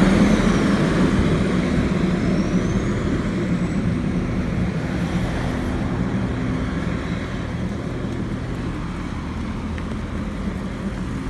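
Road traffic: a motor vehicle's engine running with a steady low hum and road noise, slowly fading away.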